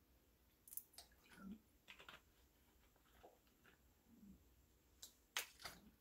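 Faint swallowing while drinking from a plastic bottle, with a few small clicks and crackles of the bottle, the loudest about five seconds in.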